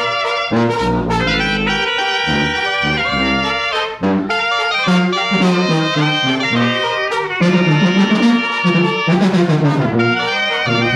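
Live banda sinaloense music: clarinets play the melody together with brass, over a moving low bass line and drum strokes. The band gets louder about two-thirds of the way through.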